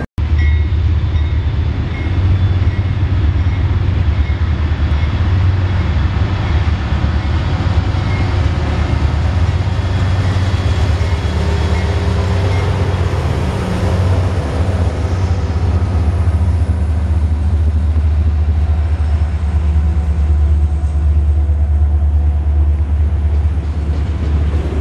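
A freight train running past, with a loud, steady low rumble.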